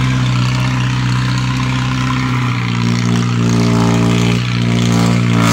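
Engine of a vehicle on chained tyres, running steadily under load; from about halfway its pitch climbs and strains as it works up a slippery clay slope.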